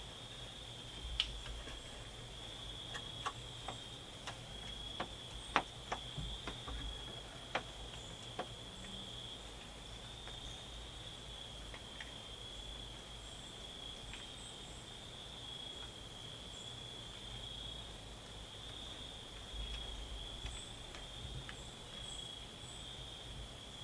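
Crickets chirping in a steady high trill, with a scatter of sharp clicks and snaps during the first several seconds.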